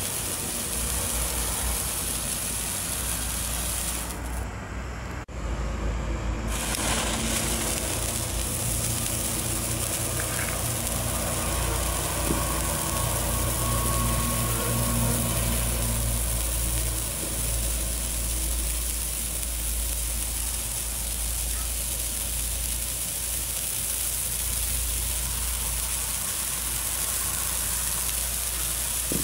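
Morning glory stick fireworks burning with a steady fizzing hiss of spraying sparks, over a low steady rumble. The hiss drops out about four seconds in, a click sounds, and it resumes about two seconds later as the next stick burns.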